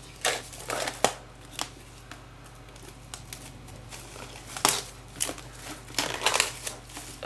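Plastic shrink wrap on a CD and Blu-ray box set crinkling in irregular bursts as it is handled and peeled off.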